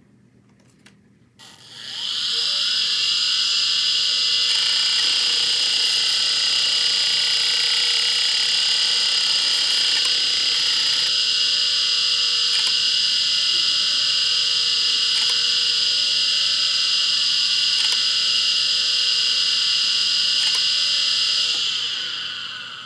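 Uncovered 1995 Samsung Apollo IDE hard drive spinning up with a rising whine, then running with a loud, steady high-pitched spindle whine. The head actuator ticks every couple of seconds as it seeks, and the drive spins down near the end. The drive is failing, with no readable sectors.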